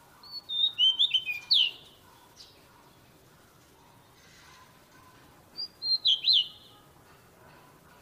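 A caged magpie-robin singing two short phrases of quick whistles that slide up and down, one about a second in and another about six seconds in.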